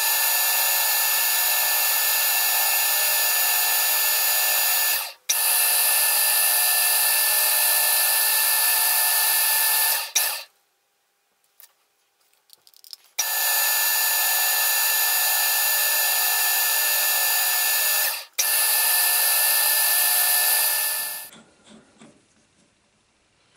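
Metal lathe running, its gear train giving a steady whine. It runs in stretches of several seconds that stop abruptly, with a gap of about three seconds in the middle, and ends about 21 seconds in, followed by faint handling sounds.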